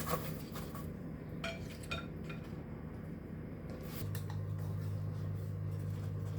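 A few light clinks of a metal spoon and sieve against a plate and sugar bowl, from dusting shortbread cookies with icing sugar. A low steady hum sets in about four seconds in.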